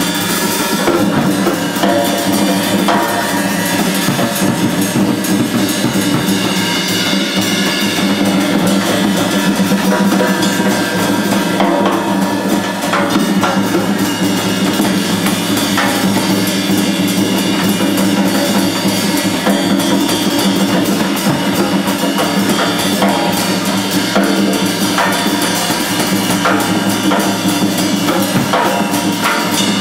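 Live band music led by drums struck with sticks, a dense and continuous stream of hits at a steady level over a sustained low band of sound.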